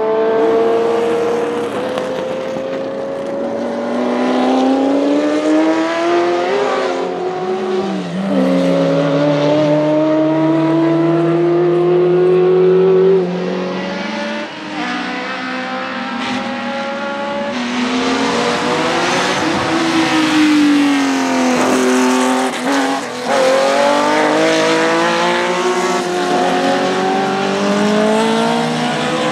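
Historic racing engines at full throttle, a Ford GT40's V8 first, rising in pitch as it accelerates up through the gears with breaks at each upshift. Then more race cars, among them a Ferrari 512 BB LM's flat-twelve, pass at speed, pitch falling and rising again, with a hiss of tyre spray off the wet track.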